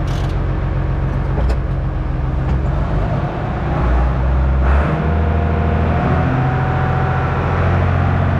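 Fendt Favorit 611's six-cylinder diesel engine running, heard from inside the cab. It is given a little throttle and picks up speed about halfway through.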